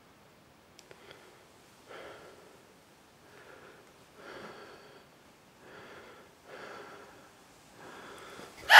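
A person breathing unsteadily, with soft breaths about every second or so, and a couple of faint clicks about a second in. A loud voice breaks in right at the very end.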